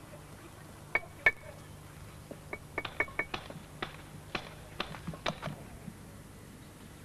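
A dozen or so sharp clinks and knocks of stone blocks being tapped and set in place, a few with a short ringing. They begin about a second in and stop about six seconds in.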